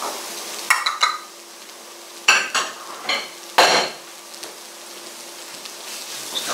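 Shredded onions and carrots sizzling in hot oil in a frying pan, with several sharp ringing clinks of dishes being handled in the first half. The sizzle grows louder near the end as the vegetables are stirred with a wooden spoon.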